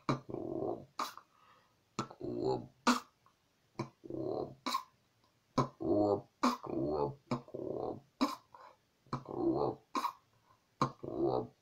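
A person beatboxing with the mouth into cupped hands: sharp snare-like clicks about once a second, alternating with short, low hummed bass notes in a loose rhythm.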